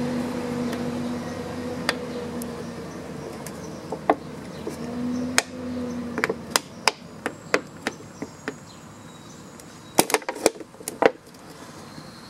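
Scissors snipping through a thin plastic drink bottle: a run of sharp clicks and plastic crackles, thickest about ten seconds in. A low steady hum underneath fades out over the first half.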